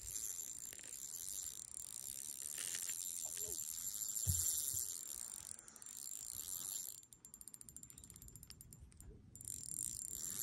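Spinning reel being cranked against a hooked trout, its mechanism ticking, with a quick run of fine clicks over the last three seconds.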